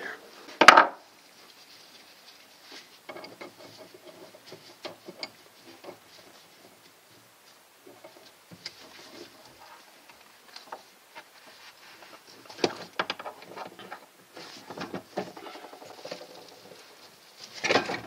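Hands working plumbing fittings and tools inside a wooden sink cabinet: scattered clicks, small knocks, clinks and rubbing against the wood, with one sharp knock just under a second in and a burst of clatter near the end.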